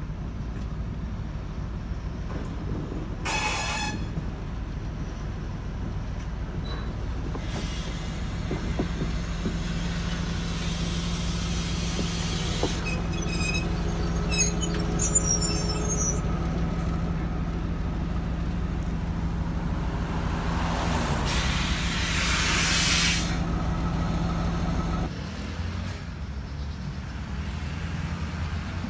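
M62 diesel locomotive's two-stroke V12 diesel running steadily as it approaches and passes close by with a freight wagon. Clicking and squealing from the wheels come about halfway through, and a loud hiss of air a little over two-thirds of the way in; the engine sound drops off at about 25 seconds.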